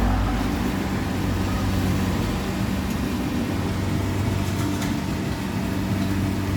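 Rice harvester's engine running steadily, a constant machine hum.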